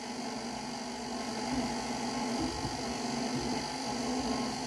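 KitchenAid stand mixer motor running with a steady hum, its dough hook mixing bread dough.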